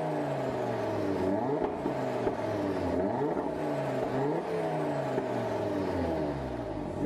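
Audi RS3's turbocharged five-cylinder engine being revved with the car standing still. The pitch climbs and falls several times as the throttle is blipped, heard at the twin exhaust tips.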